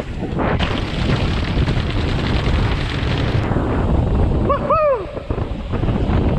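Mountain bike descending concrete stairs and riding fast over pavement, heard on a camera mounted with the rider. Heavy wind buffeting on the microphone is mixed with the rattle and thumps of the bike over the steps. About four and a half seconds in, two short high tones rise and fall.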